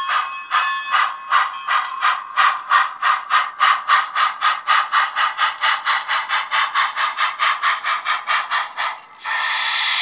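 Synthesised steam exhaust chuffs from the HO scale locomotive's Tsunami DCC sound decoder, played through the model's small speaker. The evenly spaced chuffs speed up from about three to about five a second, then stop about nine seconds in and give way to a steady steam hiss.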